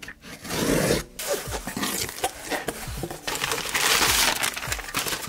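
Packing tape being ripped off a cardboard shipping box and the flaps pulled open, in a run of irregular tearing and scraping rasps with cardboard and paper rustling; the loudest stretch comes about four seconds in.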